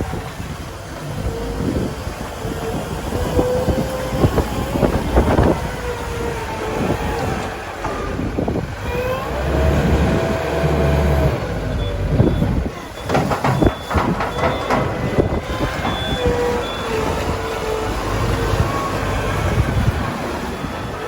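Hitachi ZW100 wheel loader's diesel engine working under load, its note rising and falling as it clears snow. A run of clanks from the bucket comes a little past the middle, along with an intermittent high beeping from the reversing alarm.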